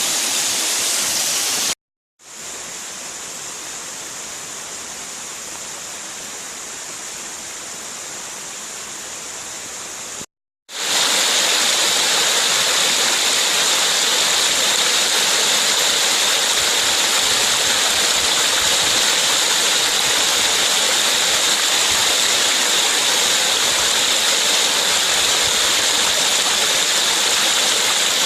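Rushing water of a mountain valley stream, a steady rush. It cuts out completely twice, briefly, about two seconds in and about ten seconds in; between the cuts it is quieter, and after the second cut it is louder.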